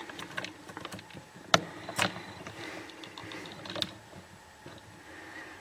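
Irregular small clicks and taps of a disc detainer pick tool working the rotating discs of a clear plastic disc detainer training lock, with the sharpest clicks about a second and a half and two seconds in.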